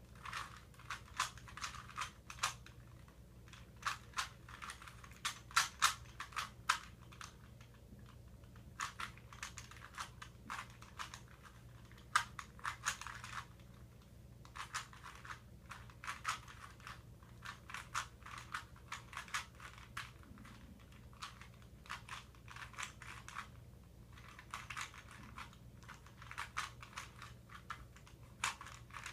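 A 3x3x3 Rubik's cube being scrambled by hand: rapid plastic clicking of its layers turning, in irregular flurries with short pauses.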